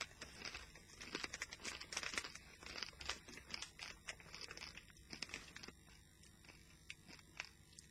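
Hard, crunchy pork scratchings being bitten and chewed close to the microphone: irregular sharp crackles that thin out and fade after about six seconds.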